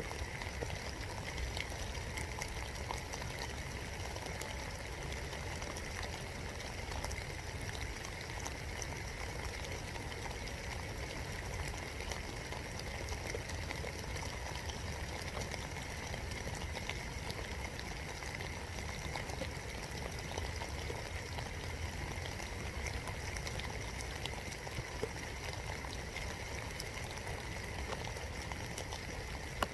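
Steady rain heard from inside a birdhouse: a constant hiss of rainfall with many small drops ticking on the birdhouse.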